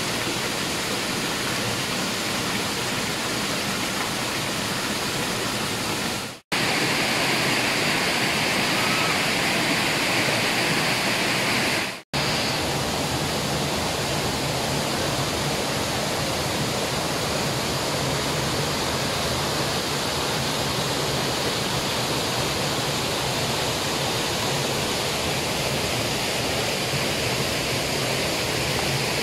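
Waterfall rushing: a loud, steady wash of falling water that cuts out for an instant twice.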